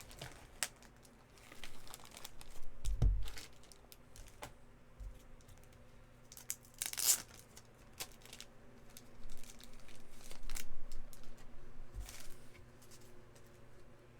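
Trading-card packaging and plastic card sleeves being handled: on-and-off crinkling and tearing of wrappers, with a dull thump about three seconds in and louder rustles about seven and ten seconds in.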